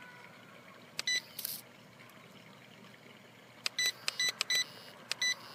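Short, high electronic beeps from the WLToys V959's radio transmitter as its function button is pressed to fire the Gatling-gun missiles: one beep about a second in, a quick run of four or five near the end, then one more. There is a brief hiss about a second and a half in.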